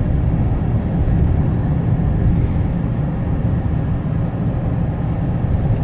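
Steady low rumble of a truck driving on the road, engine and road noise with no breaks.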